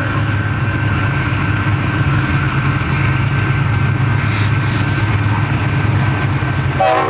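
Diesel locomotives at the head of a freight train passing close by, their engines running with a steady deep rumble.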